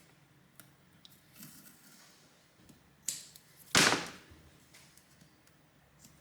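Small handling sounds while double-sided tape is got ready, with two short, sharp sounds of tape being pulled or cut a little past halfway; the second is louder and lasts about half a second.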